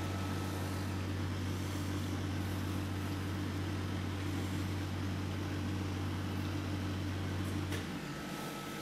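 Steady low machine hum of kitchen equipment, with a faint steady tone above it; the deepest part of the hum cuts off about eight seconds in.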